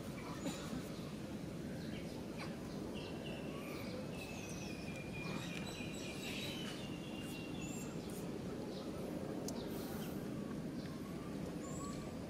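Steady outdoor background noise with faint, high bird chirps scattered through it, and a thin, drawn-out call for a few seconds in the middle.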